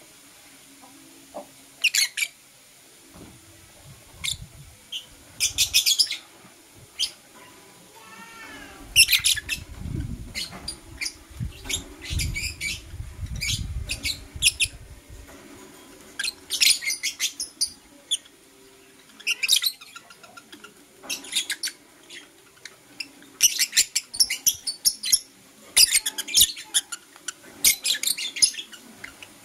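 Pet lovebirds chirping in short, sharp, high-pitched bursts that come in clusters, busiest in the last third. A low rumble sits underneath for several seconds in the middle.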